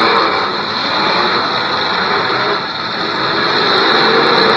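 Many demolition derby cars' engines revving together, a loud dense din with pitches rising and falling.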